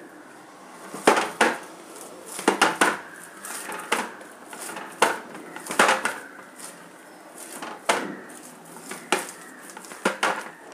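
Hands kneading and pressing a rice-flour dough of chopped greens in a stainless steel plate, with about a dozen irregular clinks and knocks of hand against the steel, roughly a second apart.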